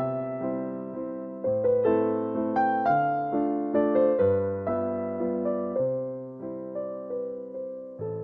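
A slow, gentle melody on a piano-sounding keyboard: single notes that ring and fade, over bass notes struck about once a second.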